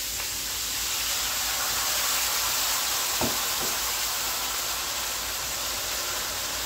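Tomatoes and vegetables sizzling steadily in a hot stainless steel skillet while a wooden spoon stirs them. There are two light knocks a little after three seconds in.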